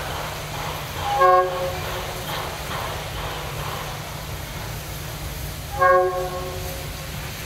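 Steam locomotive whistle giving two short blasts about four and a half seconds apart, the second a little longer, over a steady rush of locomotive noise and steam.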